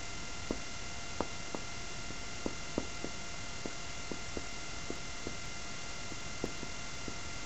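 Felt-tip marker writing on a whiteboard: short, light ticks of the tip striking and leaving the board as the letters are drawn, irregular and about two or three a second. A steady electrical hum runs beneath them.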